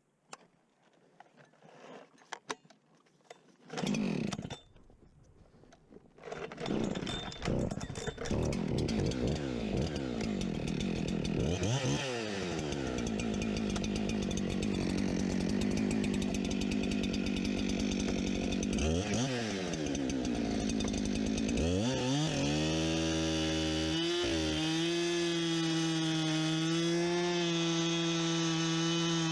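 Two-stroke chainsaw bucking firewood logs: after a few knocks and a thump it starts running about six seconds in, dips in speed and climbs back twice, then holds a steady high speed through the rest.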